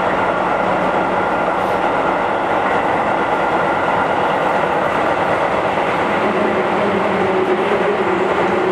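Keihan 5000 series electric train running, heard from inside the car: a steady rumble of wheels on rail. A hum grows louder about six seconds in.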